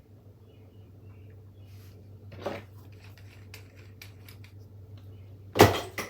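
Tools and bicycle parts being handled on a workbench: scattered small metallic clicks and clinks, a knock about two and a half seconds in, and a loud clank near the end.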